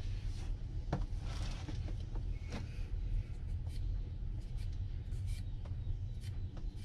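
Scattered light clicks and taps of parts being handled, with a sharper click about a second in, over a steady low rumble.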